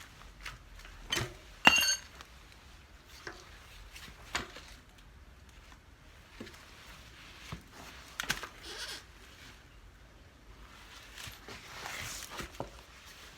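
Intermittent knocks, clicks and scrapes of hand tools and wheel parts being handled during a cart-wheel tyre change, with one sharp ringing metal clink about two seconds in and a short scraping patch near the end.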